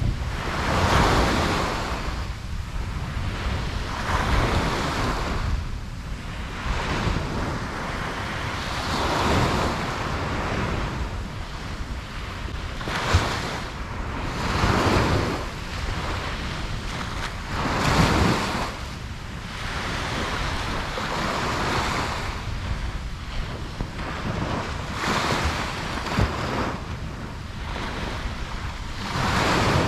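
Ocean waves breaking and washing up a beach, one surge every few seconds, with wind rumbling on the microphone.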